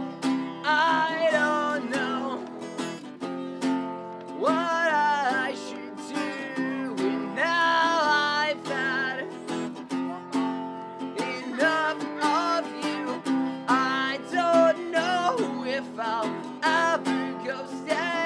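Live folk punk song: an acoustic guitar strummed steadily under a singer's voice, sung in phrases of a second or two with short breaks between them.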